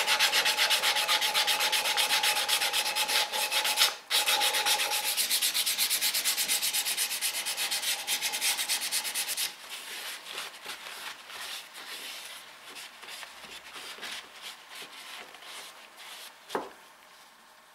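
Very fine abrasive paper rubbed rapidly back and forth over the wooden handle of a dovetail saw, about six strokes a second, with a brief pause about four seconds in. After about nine seconds it gives way to quieter, uneven rubbing of a cloth over the handle, with a single light knock near the end.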